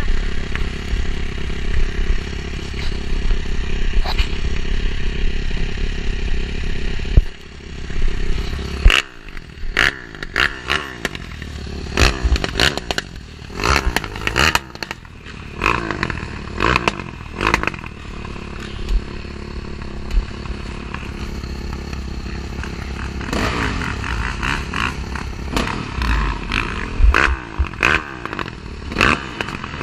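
Dirt bike engine running, steady at first, then rising and falling in pitch as it is revved. Many sharp clicks and knocks sound over it after the first several seconds.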